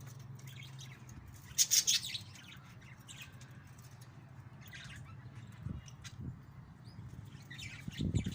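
Small caged birds chirping: a loud burst of high chirps about two seconds in, then fainter scattered calls, over a low steady hum.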